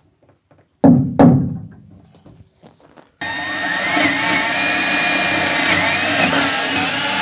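Two sharp knocks about a second in, a rubber mallet striking a punch to mark a hole. From about three seconds in, a cordless drill runs loud and steady, its motor pitch rising and falling as it bores into fiberglass-covered wood.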